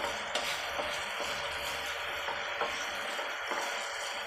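Honey sauce bubbling and sizzling in a nonstick frying pan as a wooden spatula stirs through it, with a few light taps of the spatula on the pan. The frothing boil marks the sauce as having reached the right stage for adding the chicken.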